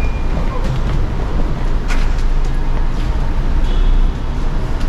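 Steady low rumble of a car, with a few light clicks.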